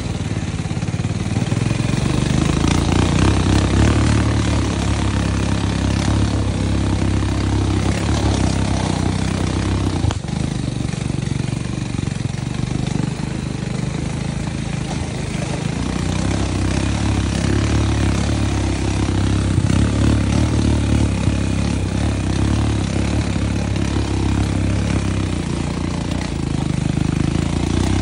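ATV (quad bike) engine running, its low engine note swelling and easing as the throttle changes while riding along a dirt trail.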